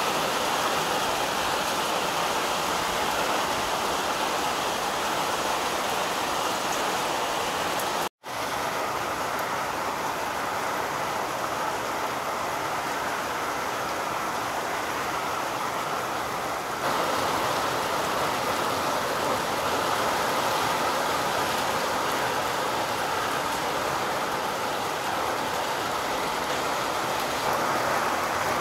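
Steady rain falling onto a flooded pond and the wet ground around it, an even hiss. It cuts out for a split second about eight seconds in.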